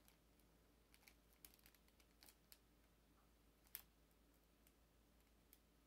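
Near silence with a few faint, scattered clicks and crinkles from hands handling cellophane-wrapped gifts; the sharpest click comes near the end of the fourth second.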